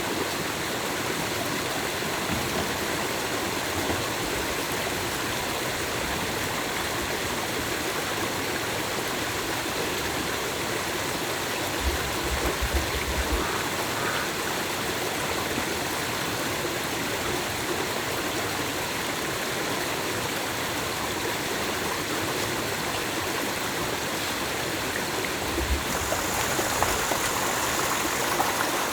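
Stream water rushing steadily over rocks, with a couple of brief low bumps partway through and near the end.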